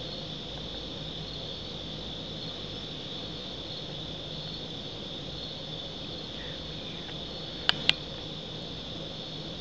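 Crickets chirping in a steady high trill. About eight seconds in come two sharp clicks, a fifth of a second apart, louder than the crickets.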